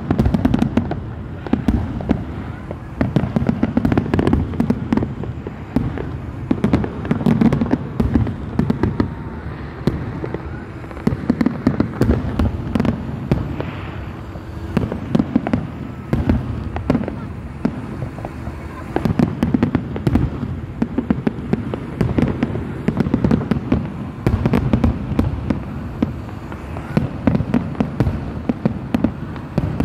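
Fireworks display: aerial shells bursting in a dense, continuous barrage of sharp bangs and crackles, one after another with hardly a break, over a low rumble.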